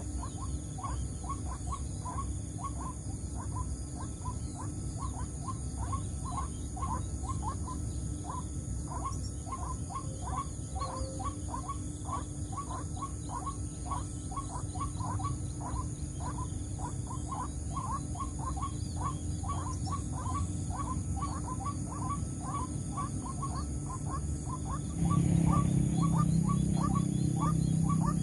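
White-breasted waterhen (ruak-ruak) calling: a short note repeated evenly two or three times a second, without a break. About 25 seconds in, a louder low hum joins it.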